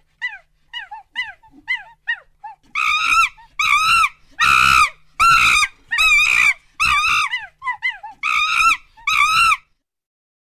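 A primate calling: a run of short, quick chirps, then about ten loud, drawn-out calls a little under a second apart, stopping shortly before the end.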